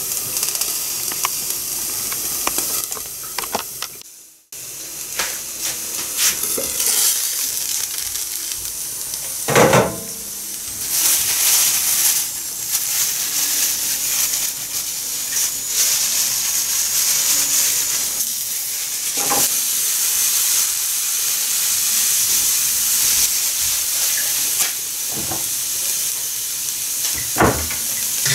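Grated onion and carrot sizzling in oil in a frying pan, louder after about eleven seconds, with a few sharp knocks against the pan.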